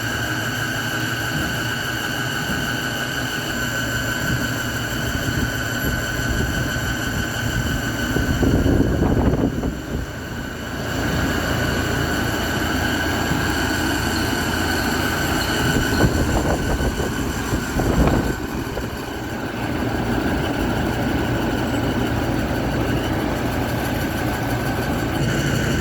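Portacool Jetstream 270 evaporative cooler's 48-inch fan running: a steady rush of air with a high whine over it, dipping briefly about ten seconds in.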